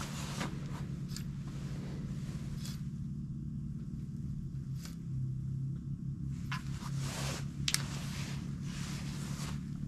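A steady low hum with a few light clicks and rustles of clothing and fishing gear being handled; the sharpest click comes a little under eight seconds in.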